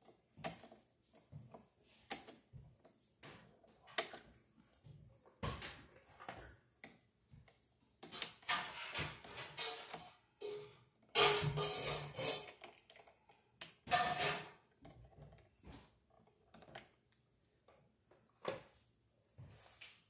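Hand work on a wall light switch: a screwdriver turning down a terminal screw onto a looped wire, with irregular small clicks and several longer scraping rasps.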